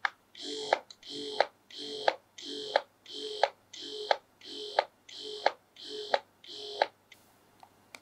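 Momcozy S12 wearable breast pump running in level 1 expression mode: a click as it starts, then about ten even suction cycles, one every 0.7 seconds or so, each a short motor whir ending in a click.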